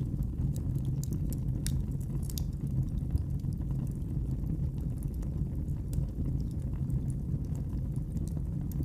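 Wood fire crackling in a fireplace: scattered sharp pops and snaps over a steady low rumble of the burning fire.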